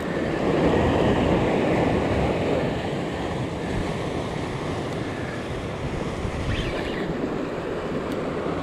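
Ocean swell surging and washing over the rocks, with wind buffeting the microphone; the surf swells louder over the first couple of seconds, then eases to a steady wash.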